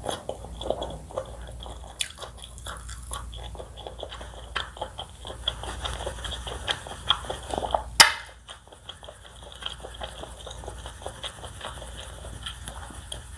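Close-miked eating: a person chewing and biting, with many small crisp mouth clicks. One sharp, loud click stands out about eight seconds in.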